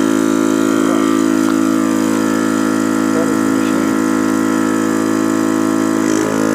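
Small portable electric air compressor running steadily with an even hum, inflating a motorcycle's front tyre fitted with a new inner tube.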